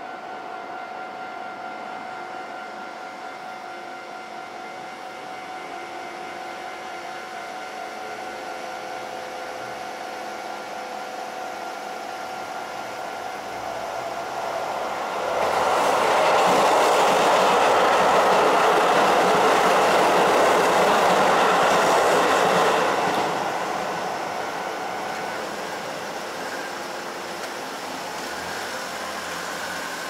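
A Japanese railway crossing's electronic warning bell ringing steadily while a train passes over the crossing. The train is loud from about fifteen seconds in for roughly eight seconds. The bell stops a few seconds later as the crossing clears.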